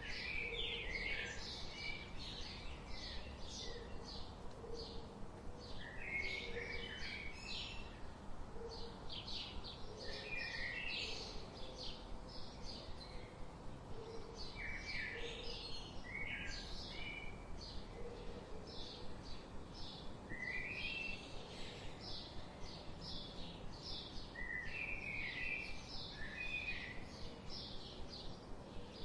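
Several small songbirds chirping and singing continuously: rapid high chirps overlapping with repeated short warbled phrases that drop in pitch, over a steady outdoor background hiss.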